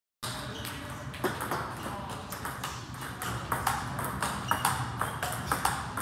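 Table tennis ball clicking sharply off bat and table again and again in quick, irregular succession during forehand topspin practice, starting suddenly about a quarter second in.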